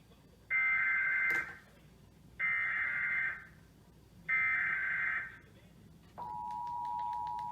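Emergency Alert System SAME header: three bursts of warbling data tone, each about a second long, then the steady two-tone EAS attention signal starting about six seconds in. It marks the start of a Required Monthly Test alert.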